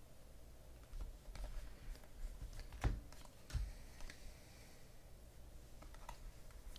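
A few faint, scattered clicks and taps from handling, with two sharper clicks about three and three-and-a-half seconds in.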